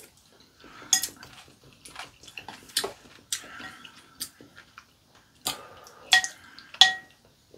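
Eating sounds from two people at a table: utensils clinking against ceramic soup bowls, with a few sharp ringing clinks, among slurps of sujebi broth and chewing.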